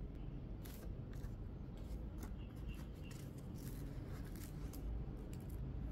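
Faint rustling and light scraping of glossy photocards and posters being handled and arranged by hand, with scattered soft clicks.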